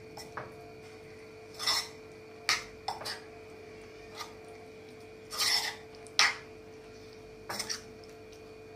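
Metal spoon scraping and clinking against a bowl in short, irregular strokes while mixing raw prawns into a corn flour and maida coating, over a faint steady hum.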